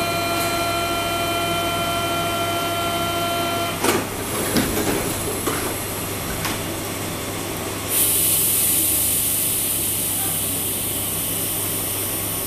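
A double-deck RER electric train standing at the platform: a steady warning tone sounds for about four seconds and stops, then several knocks follow as the doors shut. About eight seconds in a loud hiss of compressed air starts and carries on, over the train's steady low hum.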